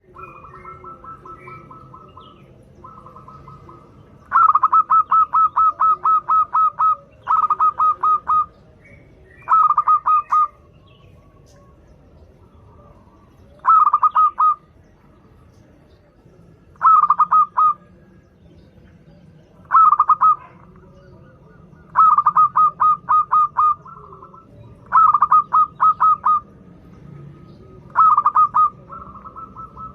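Zebra dove (perkutut) singing its loud staccato coo: bursts of quick, evenly repeated notes, each burst lasting one to two and a half seconds, repeated after short pauses. A softer continuous trill at the same pitch runs at the start and again near the end.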